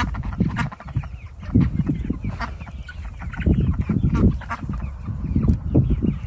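A flock of young chickens, about nine weeks old, calling in short, irregular clucks.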